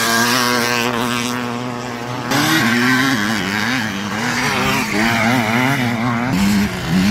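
Vintage motocross motorcycles racing on a dirt track, their engines revving up and falling back over and over. A steadier engine note runs underneath.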